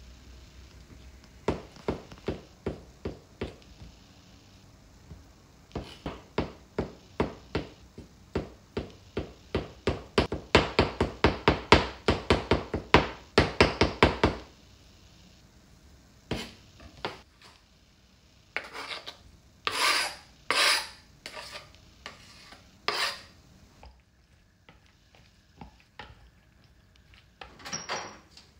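Kitchen knife chopping food on a plastic cutting board: a long run of steady strokes that speed up and get louder toward the end. After a pause, a few scattered knocks and clatters as kitchen things are handled.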